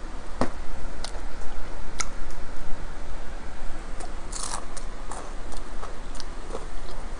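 Close chewing of a mouthful of pizza topped with Flamin' Hot Cheetos, with scattered short wet mouth clicks and small crunches, a cluster of them about four and a half seconds in.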